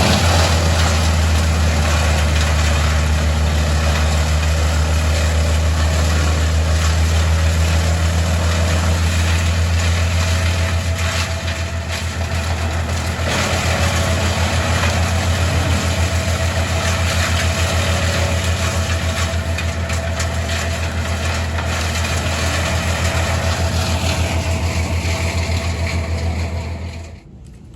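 An engine running steadily at a constant speed with a strong low hum, cutting off abruptly near the end.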